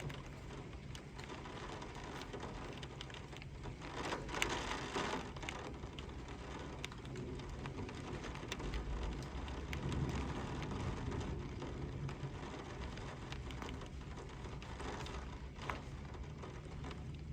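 Rain pattering on a surface as a dense run of small ticks, over a steady low hum.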